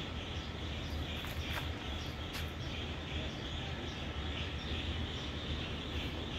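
Steady outdoor background noise with a low rumble, and a few faint short chirps about a second and two seconds in.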